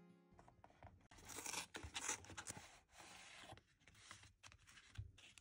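Quiet rustling and crinkling of paper or packaging being handled and torn, with scattered light clicks and a soft knock near the end.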